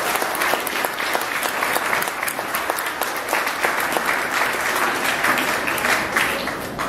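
Audience of schoolchildren applauding, dense steady clapping throughout.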